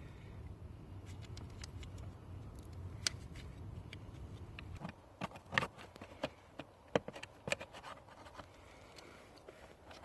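Plastic footwell trim cover under a Mercedes E320 dashboard being handled and fitted into place: a low rumble for the first half, then a quick series of sharp plastic clicks and knocks as the panel is pushed in.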